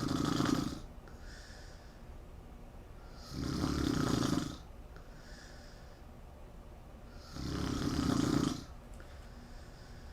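A woman snoring loudly in her sleep: three long snores about four seconds apart, each lasting about a second, with a fainter breath between them.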